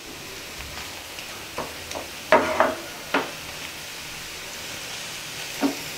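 Minced mutton sizzling in a nonstick frying pan as a wooden spatula stirs it, with a few short scrapes of the spatula across the pan. The mince is being sautéed in its own released juices, the water from the meat cooking off.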